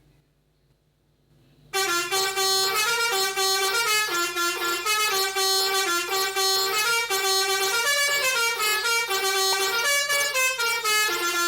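A pianika (melodica) playing a fast telolet basuri bus-horn melody, a quick run of loud horn-like notes that starts abruptly a little under two seconds in after near silence.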